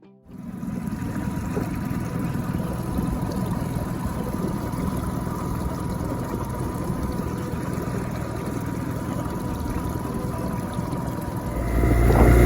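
Suzuki 9.9 hp outboard motor running steadily, growing louder with a clearer engine note about a second before the end.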